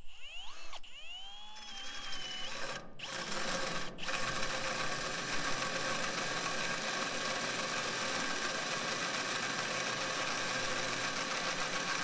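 Cordless drill turning a hole saw into the steel tailgate frame. For the first few seconds the motor's whine rises and falls as the trigger is feathered, with two brief stops. After that it runs steadily, with the grinding hiss of the saw teeth cutting through steel.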